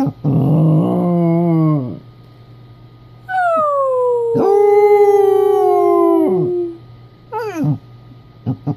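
A basset hound howling: a short, lower howl near the start, then a long howl about three seconds in that slides down in pitch and holds steady before fading, followed by a few short yelps near the end.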